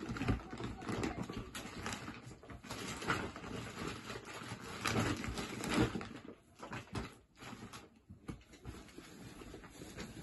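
Handling noise close to the microphone: rustling, rubbing and small knocks as the paper card and phone are held and moved. It is loudest in the first six seconds, then quieter.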